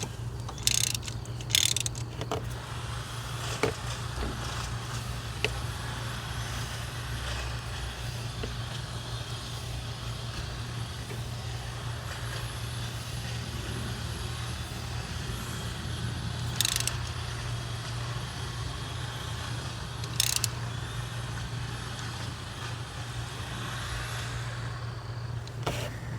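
Steady low hum with a few brief clicks and scrapes of hand tools working on the engine, a couple near the start and two more later.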